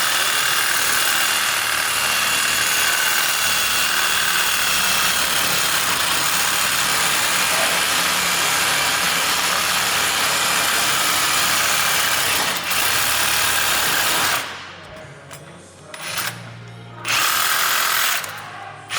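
Angle grinder grinding steel: a loud, steady hiss with a faint whine for about fourteen seconds. It then stops, and the grinder comes back on in three short bursts near the end.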